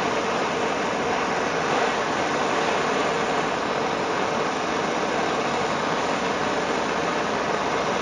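Handheld gas torch burning with a steady hiss, its flame held on the blades of pruning shears to sterilise them.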